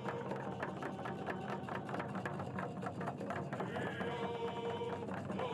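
Rapid, irregular clicking over a steady low hum, with a held tone coming in about four seconds in.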